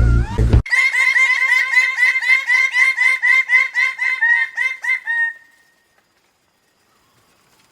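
A chicken clucking in a fast, even run of about four to five calls a second for some four seconds, then stopping abruptly. A brief end of music comes just before it.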